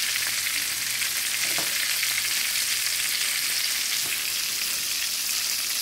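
Oxtail pieces searing in hot oil in a skillet: a steady sizzle with a few sharper crackles, as the meat is browned before going into the slow cooker.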